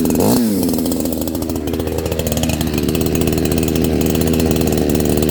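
CMA 6800 68cc two-stroke chainsaw idling just after a cold start. Its pitch rises from about a second in, then holds steady. The idle is set high enough that the chain keeps spinning until the idle screw is turned down.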